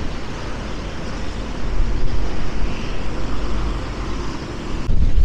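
Strong wind blowing over the microphone: a steady rush of noise with a heavy low rumble from the gusts, easing slightly in the middle and picking up again near the end.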